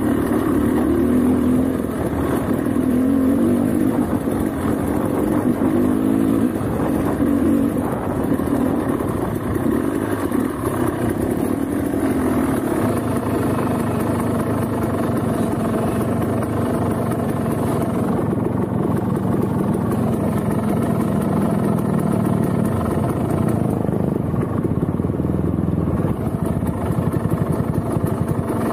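Motorcycle engine running continuously, its pitch wavering up and down with the throttle, with some clatter mixed in.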